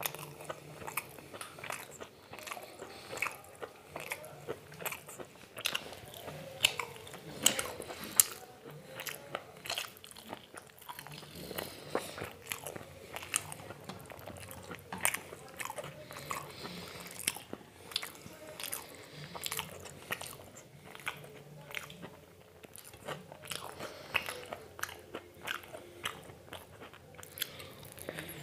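A person chewing and biting food close to the microphone, with many crisp, irregular crunches and clicks.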